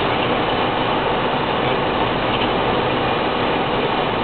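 Steady tyre and engine noise inside a car's cabin at motorway speed on a wet road, with no change in level.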